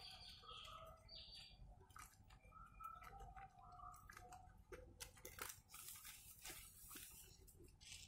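Faint squishing and crackling of shampoo lather as hands scrub a wet long-haired cat's fur. Short soft clicks come more often in the second half.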